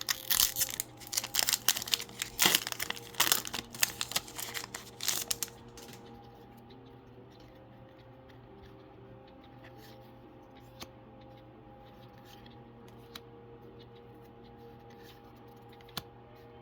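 A Pokémon card booster pack's foil wrapper being torn open and crinkled for about the first six seconds, followed by a quiet stretch with a few faint ticks.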